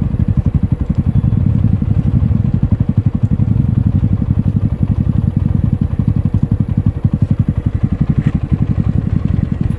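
Motorcycle engine running steadily with a rapid, even beat.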